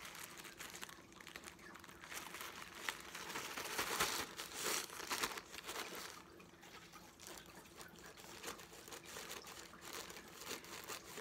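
A thin plastic mailing bag crinkling and rustling as it is cut open with scissors and pulled apart by hand, louder about four seconds in.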